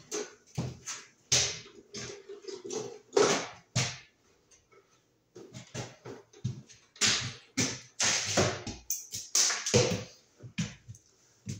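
Irregular clicks, taps and rustles of hands working wires and small hardware at a light fixture's electrical box.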